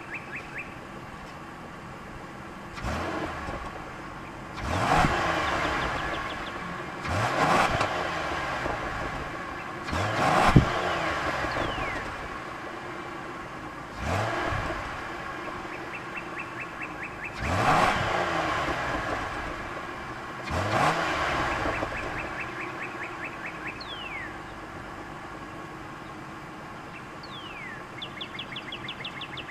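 Ford Taurus exhaust note through a 3-inch tailpipe tip, heard at the tip: the engine idles and is blipped about seven times, each rev climbing and falling back to idle within a couple of seconds. A sharp pop comes from the exhaust about ten seconds in.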